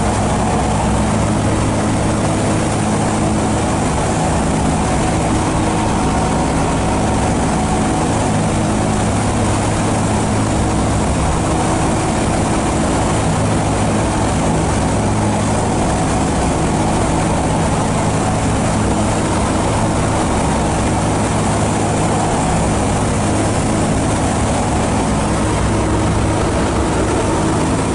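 The four Wright R-1820 Cyclone radial engines and propellers of a B-17 Flying Fortress in cruising flight, heard from inside the bomber's glazed nose. A steady deep drone under a constant rushing hiss.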